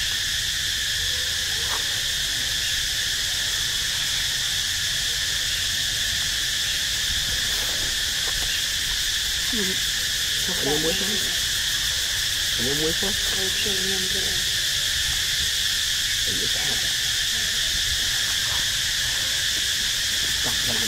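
Steady chorus of insects, an unbroken high-pitched buzzing drone, with a few short faint voices about halfway through.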